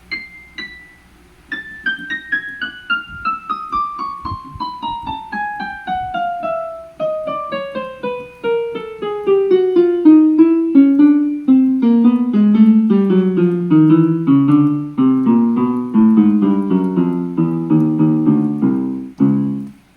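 Davis D-610 electronic keyboard played one key at a time in a steady descending run, from the top of the keyboard down to the lowest notes, a few notes a second, as each key is checked for sound. The notes get louder about halfway through.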